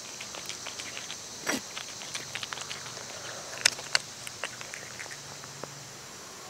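Cat eating wet tuna from a bowl: irregular wet smacking and chewing clicks, with two sharper clicks a little past halfway. A steady high insect buzz runs behind it.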